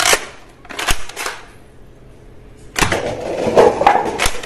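Spring-loaded toy foam-dart blaster firing with a sharp snap, then a second sharp click just under a second later. About three seconds in, a stack of paper cups clatters down for about a second and a half.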